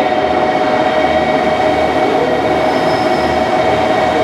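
JR Kyushu KiHa 72 series diesel railcar train (Yufuin no Mori III) running slowly alongside a station platform as it pulls in, a steady train noise with a constant tone throughout.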